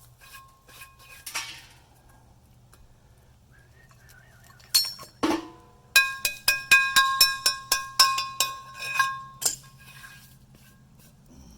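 A clank about five seconds in, then a quick run of about a dozen sharp metal clinks over three and a half seconds, each ringing at the same bell-like pitch as metal forge parts knock together.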